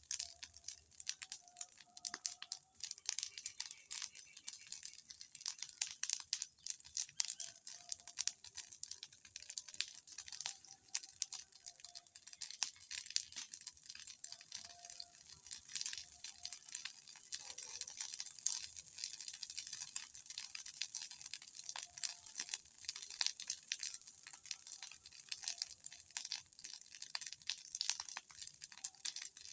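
Large bonfire crackling: a dense, irregular stream of sharp crackles.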